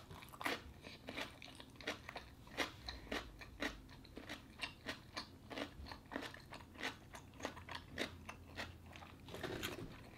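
A person chewing a mouthful of raw cucumber, a run of crisp, wet crunches about two or three a second.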